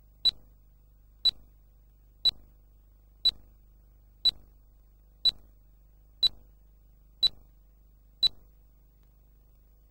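Nine short, sharp electronic ticks, evenly spaced one a second, over a faint low hum.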